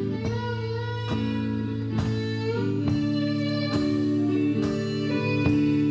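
Live blues music: a bowed violin holding long notes over guitar and bass, with a steady beat struck a little more than once a second.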